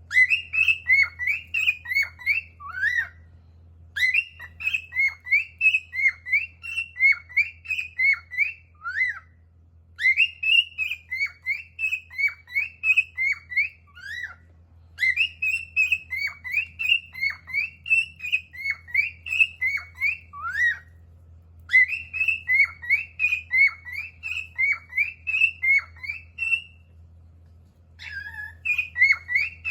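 Male cockatiel singing: runs of quick whistled notes swooping up and down, in bouts of several seconds with short pauses between. A steady low hum runs underneath.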